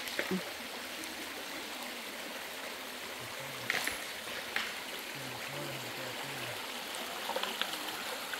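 Shallow creek water running steadily, with a couple of short clicks about halfway through.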